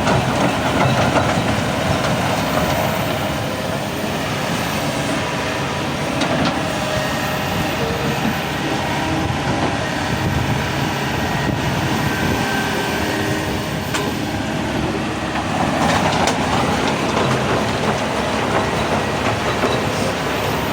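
An excavator working: a steady, dense mechanical rumble with a few sharp knocks and clanks.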